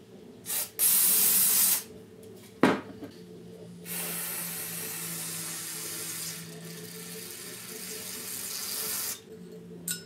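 Aerosol carburetor cleaner spraying through its thin extension straw into a golf cart carburetor's jets and passages. There is a short puff, then a loud one-second blast, then a long spray of about five seconds from about four seconds in. A single sharp knock comes between the blast and the long spray.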